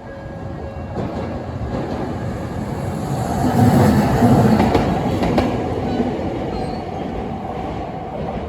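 A train passing a railway crossing, growing louder to a peak about four seconds in and then slowly fading, with a few sharp clicks along the way.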